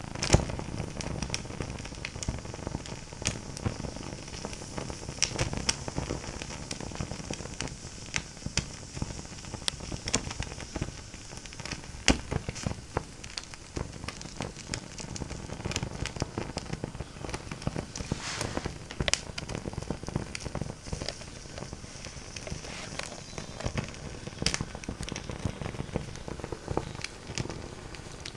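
Fire crackling: many irregular sharp pops and snaps over a steady hiss.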